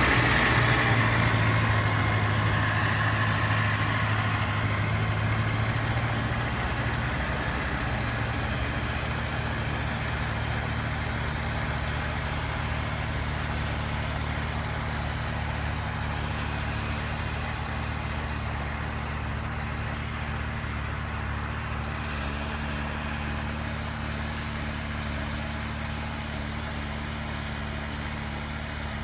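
Diesel farm tractor engines working under load while pulling ploughs through a field: loud at first and fading steadily over the first several seconds as the nearby tractor moves away, then a steady, lower engine hum that keeps slowly fading.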